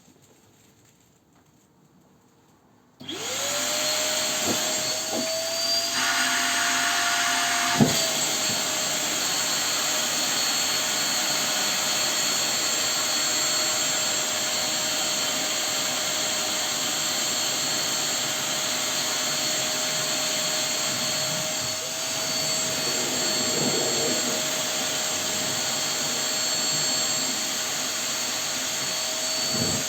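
Vacuum cleaner switched on about three seconds in: the motor spins up to a steady whine and keeps running, with a sharp click a few seconds later.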